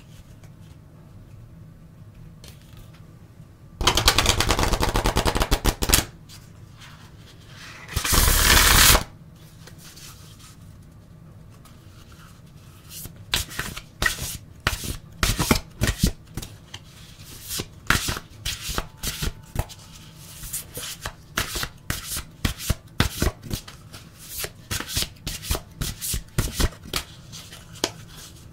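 Deck of oracle cards being shuffled by hand. There are two loud bursts of rapid card flutter, about four and eight seconds in. Then comes a long run of shuffling in which the card edges snap and slap two or three times a second.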